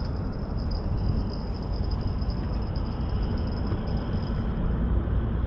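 Steady outdoor background noise: a low rumble with a faint, steady high whine over it.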